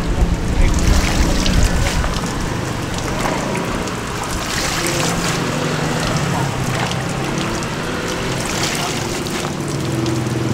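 Wet leafy greens being handled and piled into a plastic basket, with water trickling and dripping off the leaves and a crackly rustle of leaves, over steady outdoor traffic noise. Wind buffets the microphone at the start.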